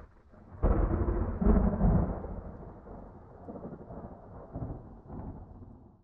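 Thunder sound effect: a sudden loud crack about half a second in, then a rolling rumble that dies away, with a couple of smaller rumbles near the end before it cuts off abruptly.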